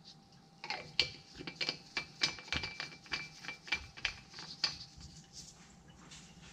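Handling noise from off-camera lab items: a run of irregular clicks and rasping scrapes, starting about a second in and dying away around the five-second mark.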